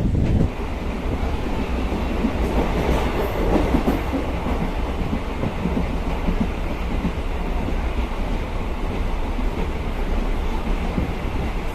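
DEMU (diesel-electric multiple unit) passenger train running along the track, heard from on board: a steady, loud rumble with wheel-on-rail clatter.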